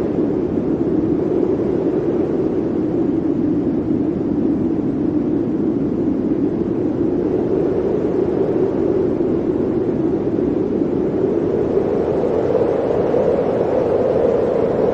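Blizzard wind blowing steadily in a hollow, even rush. Its pitch sinks a little early on and rises slowly again toward the end.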